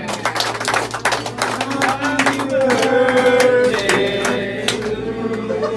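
A group of people clapping by hand, with voices starting to sing together from about halfway through.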